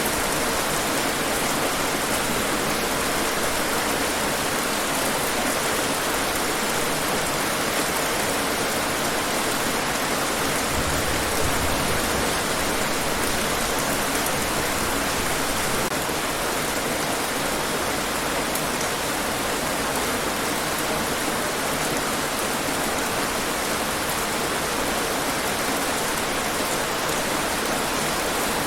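Steady heavy rainfall, an even hiss of rain hitting surfaces with no breaks.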